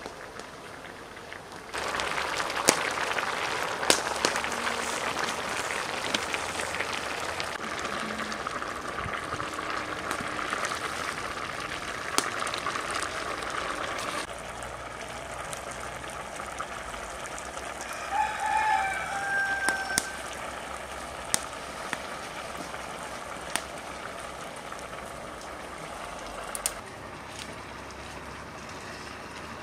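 Wood campfire crackling under a steaming pot of boiling liquid: an even hiss with many sharp snaps. It then drops to a quieter crackle, with a hen clucking briefly past the middle.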